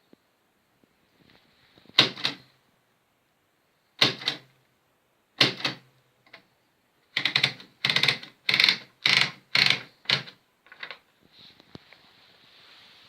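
AEG Mignon index typewriter printing. A few single clacking strokes spaced a second or two apart, then a quicker run of about six strokes, then a couple of fainter clicks.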